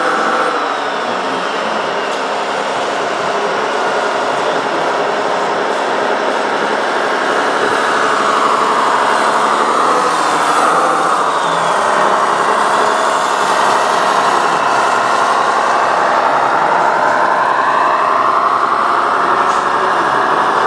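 Radio-controlled construction truck running, a steady mechanical whine whose pitch sinks partway through and then climbs again.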